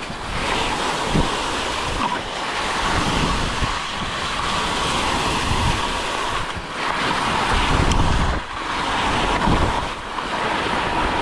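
Wind buffeting the microphone: a steady rushing noise with gusty low rumble and a few brief lulls.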